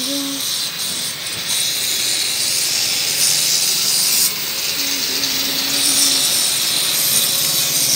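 Steady high rasping and hissing of a power tool at work, with a brief drop in level about four seconds in.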